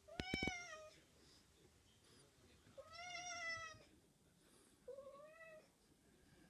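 Domestic cat meowing three times while carrying a toy in its mouth: a first call opening with a few sharp clicks, a longer drawn-out call about three seconds in, and a shorter one about five seconds in.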